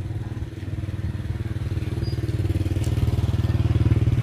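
Small engine running with a fast, even pulse, growing gradually louder.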